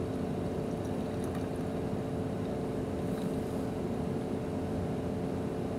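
Steady low machine hum of the laboratory's air handling, unchanging throughout.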